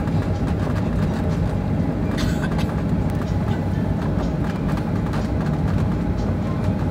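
Cabin noise of a jet airliner on its take-off roll: a steady, heavy rumble of the engines at take-off power and the wheels running over the runway, with scattered small knocks from the pavement joints.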